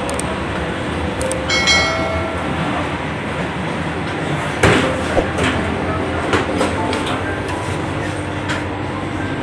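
Vande Bharat Express coach running at speed, heard from the vestibule near the doors: a steady rumble and rattle. About a second and a half in there is a brief high-pitched ringing tone, and a sharp knock comes about halfway through, followed by a few lighter clicks.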